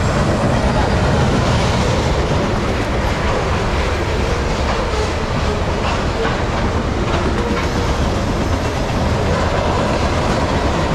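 Freight train cars, flatcars loaded with open-top containers, rolling past fast: a steady loud rumble of wheels on rail, with a few faint clicks now and then.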